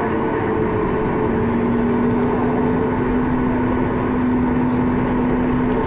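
Steady cabin noise inside a Boeing 737 MAX 8-200 moving slowly on the ground: a constant rumble with a steady hum. About a second in, a lower hum takes over from a higher one.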